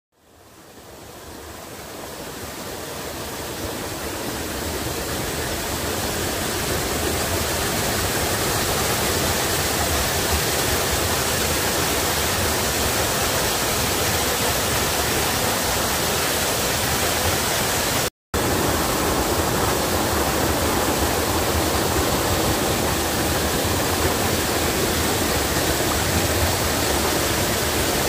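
Steady rush of a waterfall, fading in over the first few seconds and cutting out briefly about eighteen seconds in.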